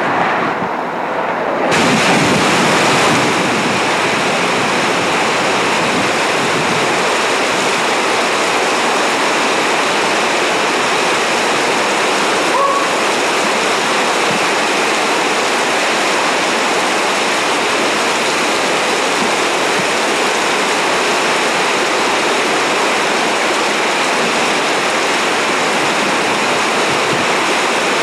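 Heavy downpour of rain: a loud, steady hiss that suddenly grows fuller and brighter about two seconds in and then holds.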